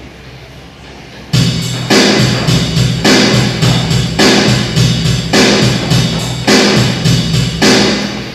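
Yamaha electronic keyboard playing a built-in rhythm pattern with drums and bass, set off by a key press, with a steady repeating beat. It starts about a second in and stops just before the end.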